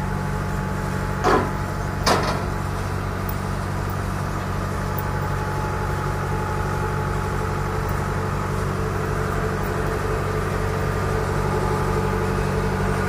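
Kubota DC93 Extra combine harvester's diesel engine running steadily as the machine creeps down steel-framed loading ramps. There are two sharp metallic clanks about a second and two seconds in.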